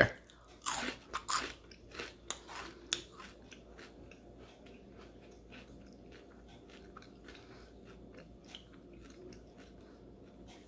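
A person biting into and chewing a crunchy fried sand flea (mole crab): a few louder crunches in the first three seconds, then quieter chewing with small crunches.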